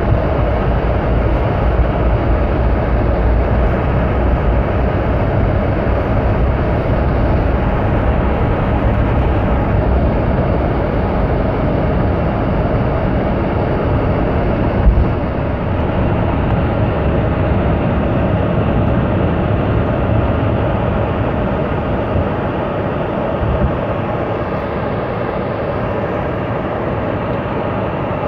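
Cabin noise of a Boeing 717 on its takeoff roll: the Rolls-Royce BR715 turbofans running at takeoff thrust over a heavy rumble from the wheels on the runway. About halfway through there is a single thump and the low rumble drops away as the aircraft lifts off, leaving steady engine noise into the climb.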